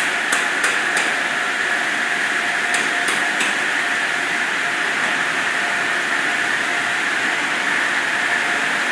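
PDQ LaserWash touchless automatic car wash running, a steady hiss with a faint steady tone under it. Two quick runs of three sharp clicks come in the first second and again about three seconds in.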